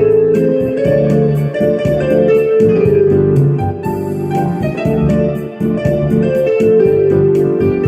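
Electronic keyboard playing a melody of held notes over sustained chords and a bass line, with a steady ticking rhythm from its built-in drum accompaniment.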